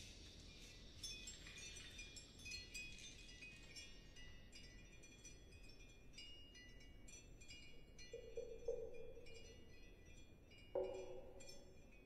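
Faint background score of sparse, high tinkling chime tones, with a lower held note coming in about eight seconds in and a louder one near the end.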